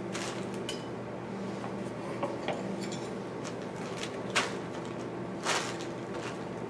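Hand carving on a white cedar decoy block: scattered light clicks and tool knocks with a few short scraping cuts, the two loudest about four and five and a half seconds in.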